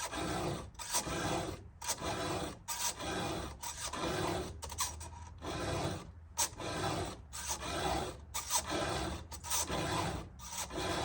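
Hand file rasping across the cutter teeth of a vintage chainsaw chain: repeated strokes at a steady pace, roughly one a second, while the teeth are sharpened.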